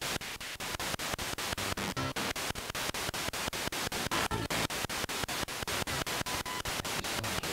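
Radio static chopped into rapid, even bursts, about seven a second, with a couple of brief pitched snippets near 2 s and 4.3 s: a spirit box sweeping through radio stations for answers to a question.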